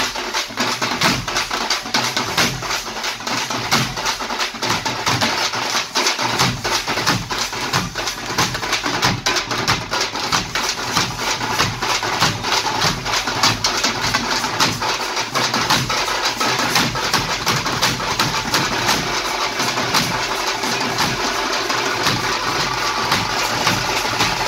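A troupe of tamate frame drums beaten with sticks in a fast, dense, steady rhythm.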